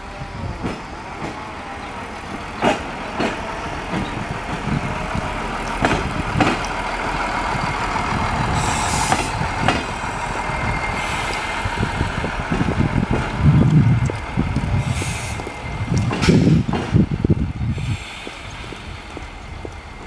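RA1 diesel railbus rolling past at arrival speed: its diesel engine running, wheels clicking over the rail joints in pairs, brief air hisses, and a steady high squeal through the middle of the pass as it slows.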